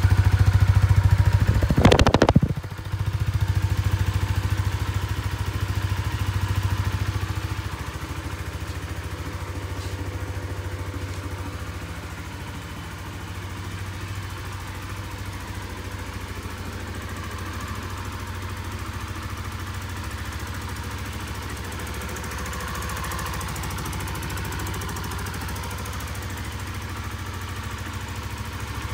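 Honda CBR125R's single-cylinder four-stroke engine idling steadily. It is louder for the first two seconds, then lower, with a brief bump about two seconds in.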